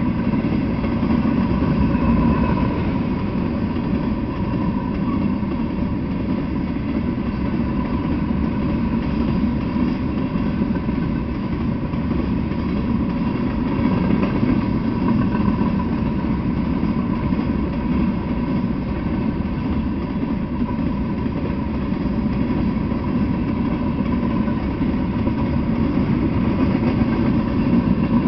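Freight train of covered hopper cars rolling past, a steady rumble of steel wheels on the rails with a faint steady whine above it.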